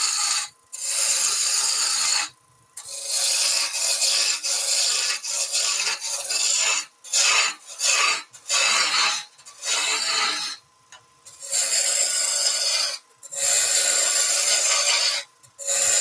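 A turning tool cutting a spinning wooden spindle on a lathe: shavings hiss off in repeated passes of one to three seconds, with short breaks between cuts, as the blank is reduced to form a handle.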